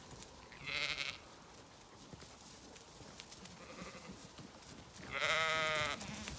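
Zwartbles sheep bleating: a short bleat about a second in, then a longer, louder, quavering bleat near the end.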